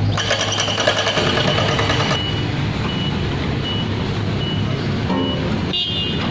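Heavy diesel excavator engines running with a steady low hum, with clattering for the first two seconds. After that a vehicle reversing alarm beeps repeatedly at a high pitch.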